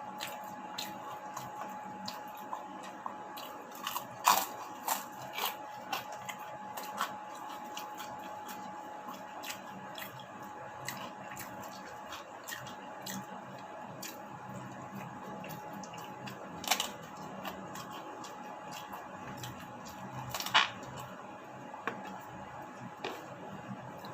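Close-up eating sounds: chewing and crunching fried food, with many small sharp clicks and a few louder knocks, over a steady thin background tone.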